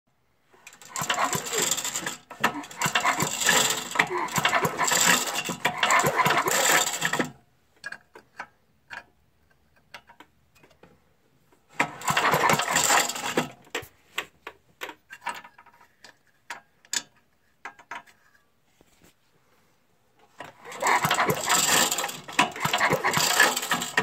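5 hp Briggs & Stratton engine cranked over on its recoil pull-starter in three spells, with its spark plug out and grounded on the cylinder head for a spark test, so it turns over without firing. Scattered clicks come in the pauses between pulls.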